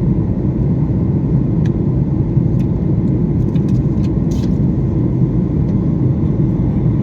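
Steady low rumble of a passenger airliner's cabin noise, engines and airflow, with a few faint clicks midway.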